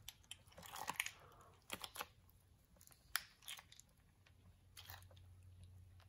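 Beeswax honeycomb being squished by gloved hands, giving a scatter of faint sticky crackles and squelches as the comb is crushed and the honey runs out.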